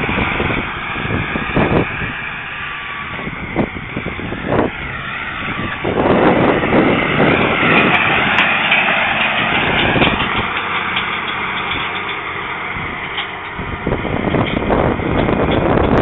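Belarus 1221 tractor's diesel engine working steadily as it pulls a Gruber Satex disc cultivator through the soil, louder midway as the tractor passes close.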